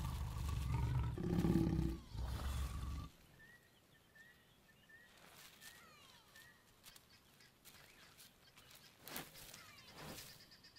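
Lions growling and snarling at mating, loud and low for about the first three seconds, then cutting off. After that it is quiet apart from faint bird chirps.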